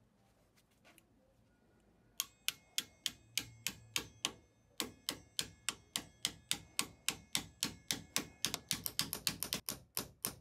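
Small hammer tapping on the metal top of a wooden awl handle held in a vise, driving the old drill-bit blade into the handle. The light, sharp strikes start about two seconds in, come three or four a second with a short metallic ring, and quicken near the end.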